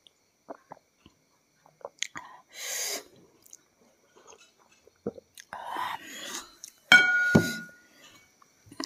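Close-miked mouth sounds of someone sipping and swallowing a drink from a glass: small wet clicks and breathy exhales. About seven seconds in comes a sharp clink with a short ring as the glass is set down.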